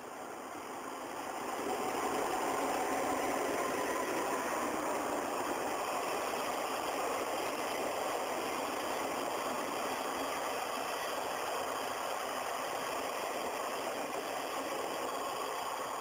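Locomotive-hauled sleeper train passing: the steady noise of its wheels running on the rails, which swells over the first couple of seconds and then holds.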